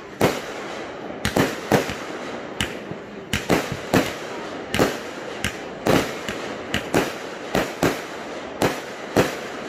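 Aerial fireworks launching and bursting: an irregular run of sharp bangs, about two a second, that stops shortly before the end.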